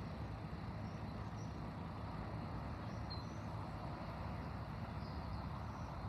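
Steady low outdoor rumble with a few faint, short, high chirps scattered through it.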